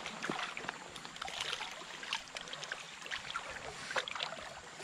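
Water of a shallow stream running, with many small quick splashes close by.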